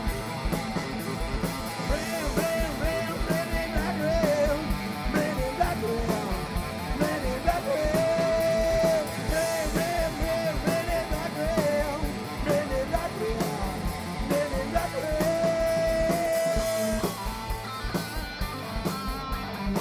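Live heavy metal band playing: distorted electric guitars, bass and drums, with a wavering lead melody that holds long notes. The lead line and some of the loudness drop away about 17 seconds in.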